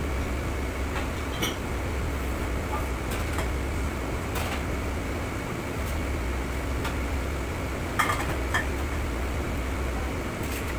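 Scattered clinks and clatters of pots, pans and utensils in a commercial kitchen, over a steady low hum of kitchen ventilation; the loudest clatter comes about eight seconds in.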